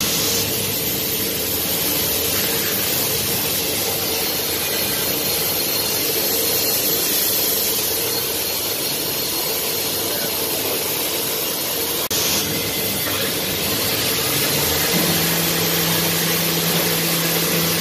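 Huller Hille Bluestar 6 CNC horizontal machining centre running with a tool in its SK-50 spindle, a steady mechanical hum over a loud hiss. A lower steady hum joins about three-quarters of the way through.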